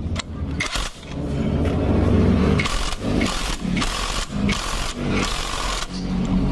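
Electric power wrench running in several short bursts from about a second in, tightening the clutch nut on a Honda Supra motorcycle's clutch.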